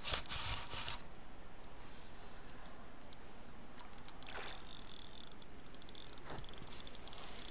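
A hooked small carp splashing and swirling at the surface close to the bank, heard as short bursts of splashing, with brief runs of rapid ticking.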